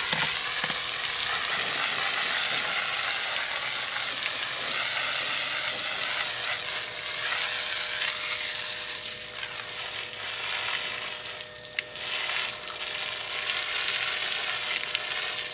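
Water jet from a hose spray nozzle hissing steadily as it washes down hanging boar carcasses and splashes onto the concrete, easing off briefly about two-thirds of the way through.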